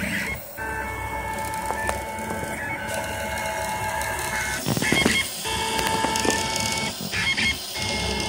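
Rostock MAX delta 3D printer running a print: its stepper motors whine in steady tones that jump to new pitches every second or so as the print head changes moves. There is a short louder burst about five seconds in.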